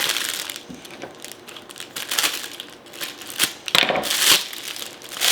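Plastic packaging crinkling and crackling as it is handled, in irregular bursts, loudest about four seconds in.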